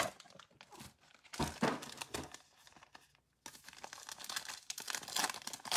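Foil wrapper of a basketball trading-card pack crinkling and tearing as it is opened by hand. There is a short burst about a second and a half in, then steady crackling from about halfway.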